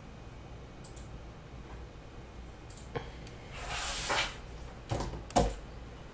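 Handling noise on a table: a short sliding rustle, then two knocks, the second the loudest, over a low steady room hum.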